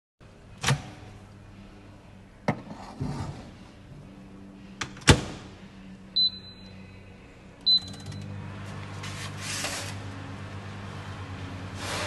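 Merrychef MDM1800 commercial microwave: the door clicks and knocks as it is worked, with a sharp shut about five seconds in, then two short keypad beeps. From about eight seconds in the oven runs with a steady low hum.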